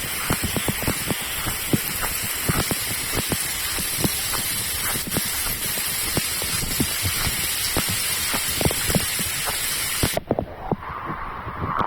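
Rain falling steadily: a dense hiss with many sharp drop impacts. About ten seconds in the hiss cuts off abruptly, leaving only scattered drips.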